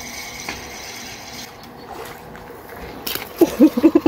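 Spinning reel being wound in as a perch is brought to the bank, a faint steady whir that fades out about a second and a half in. A sharp knock follows about three seconds in, then a man's voice briefly near the end.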